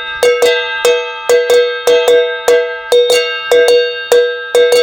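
A metal saucepan beaten with a spoon in a quick, uneven rhythm, about three to four strikes a second, each hit ringing with a loud metallic clang.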